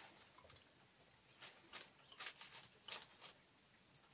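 Knife slicing through a bunch of leafy greens held in the hand over a pot: faint, crisp cuts, about six in quick succession starting about a second and a half in.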